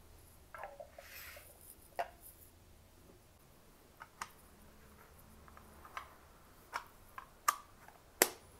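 Scattered clicks and light knocks of a hard Kodak 35mm film case being handled as its plastic insert is set in and the lid fitted on. The sharpest click comes near the end, as the lid's clip is pressed shut.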